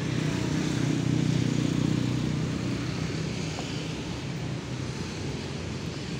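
Road traffic: a motor vehicle passes on the street, its engine hum swelling over the first two seconds or so and easing off, leaving a steady traffic hum.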